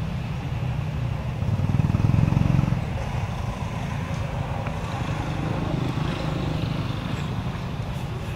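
An engine running steadily with a low hum, growing louder for about a second around two seconds in, then settling back.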